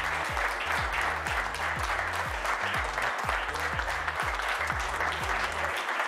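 A crowd of guests applauding, with music with a regular bass line under the clapping; the music stops near the end while the applause carries on.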